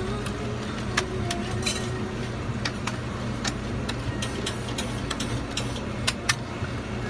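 Metal spatulas scraping and tapping on a cold iron plate as ice cream is spread into a flat sheet, giving scattered sharp clicks over a steady low hum.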